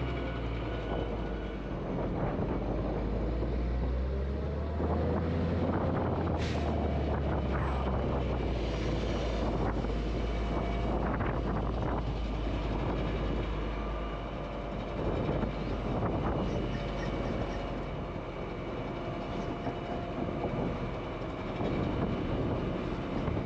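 Diesel wheel loader running steadily while its bucket tips wet distillers grains into a running Supreme vertical feed mixer truck, with irregular rattles and knocks from the bucket and falling feed.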